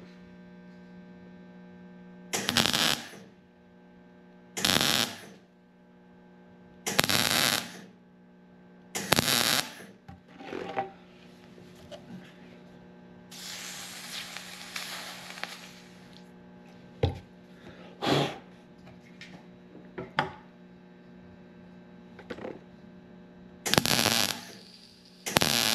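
Welder laying short tack welds on a steel transmission kickdown band: about seven brief bursts of arc crackle, each under a second and a couple of seconds apart, over a steady electrical hum, with a longer, softer hiss midway.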